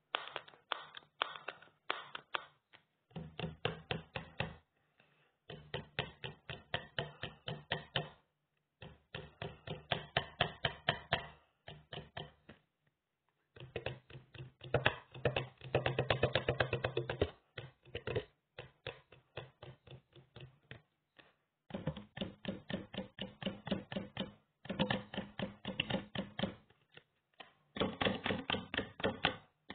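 Sound effect made with a plastic card: quick runs of clicks, several a second, in bursts of one to a few seconds separated by short pauses.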